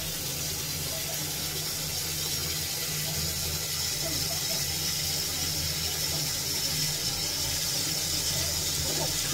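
Foam-filled bathtub: a soft, even fizzing hiss of bubbles over a steady low hum that does not change.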